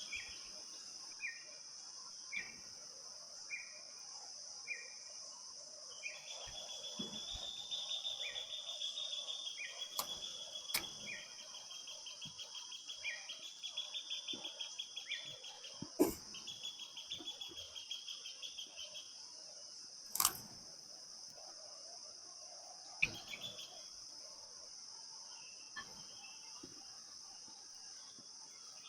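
Forest ambience: a steady high insect drone, with a bird repeating a short falling call about once a second, then a long, fast trill. A few sharp clicks stand out over it.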